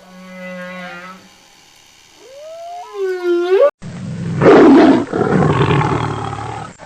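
Whale song: long pitched calls gliding up and down, then cut off abruptly a little over halfway through by a loud, rough big-cat roar lasting about three seconds.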